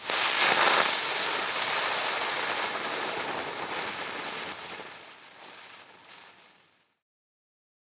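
Firework fountain spraying with a hissing crackle that flares up within the first second, then slowly dies away and stops about seven seconds in.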